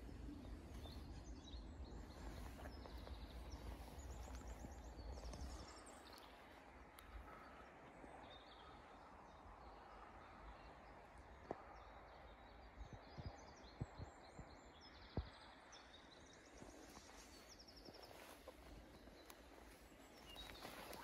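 Quiet forest ambience: small songbirds singing distant trilled phrases over and over. A low rumble fills the first five seconds or so, and a few faint sharp snaps come in the middle, like dry twigs cracking underfoot.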